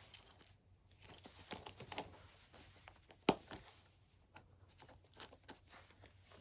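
Leather straps being pulled through the metal buckles of an M43 boot's double-buckle cuff as it is tightened: faint scattered rustles and small clicks, with one sharp click a little past halfway.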